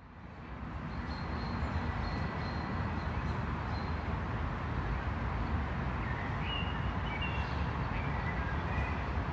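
City street ambience fading in: a steady low hum of traffic, with a few short high chirps in the second half.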